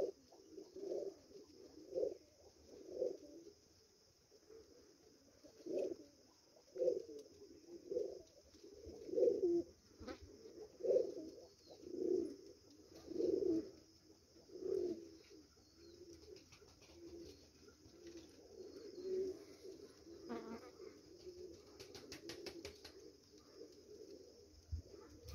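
Domestic pigeons cooing in a loft: a run of low coos about one a second, pausing briefly after a few seconds, then fading into softer, continuous cooing after about fifteen seconds.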